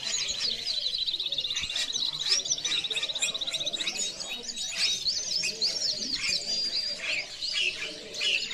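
Many caged canaries singing and chirping at once, their calls overlapping, with a rapid trill of repeated notes running through the first three seconds.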